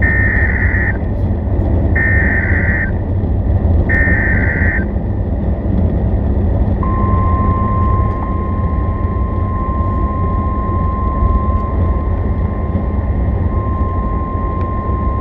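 Emergency Alert System SAME header: three bursts of warbling data tones, each about a second long and about a second apart. About two seconds later a steady single-pitched alert tone starts and holds, in the manner of the NOAA Weather Radio warning alarm. Everything plays over constant hiss and low rumble.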